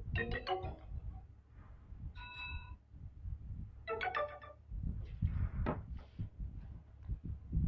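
Lenovo phone notification tones played one after another: a quick run of notes, then a single held beep, then another quick run of notes, over a low background rumble.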